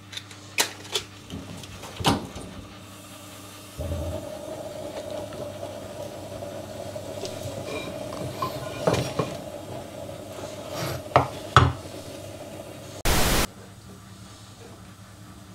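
Kitchen handling sounds: scattered clinks and knocks of utensils and dishes. A steady hum comes in about four seconds in, and a short loud burst of hiss comes near the end.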